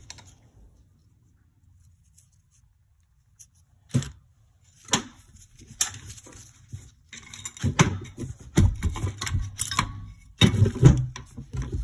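Metal knocks and clattering as the cylinder of a Yamaha YZ250F engine is worked loose and lifted off the crankcase over the piston. Quiet at first, two sharp knocks about four and five seconds in, then a busier run of clicks and knocks in the second half.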